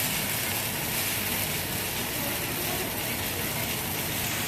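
Food frying in a hot pan, a steady sizzling hiss.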